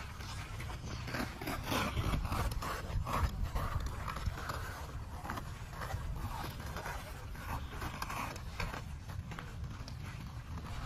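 Ice skate blades striding and scraping over outdoor pond ice in a run of repeated strokes, with a steady low rumble underneath.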